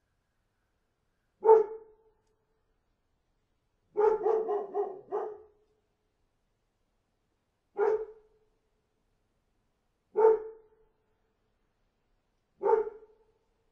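A dog barking: single barks about every two and a half seconds, with a quick run of about five barks a few seconds in, and dead silence between them.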